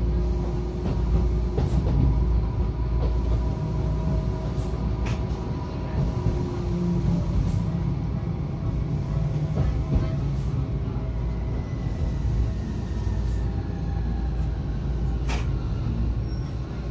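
Tokyu Setagaya Line 300 series light-rail car running, heard from inside the car: a steady low rumble of motors and wheels with a few short clicks. A faint falling whine comes in as it slows into the station.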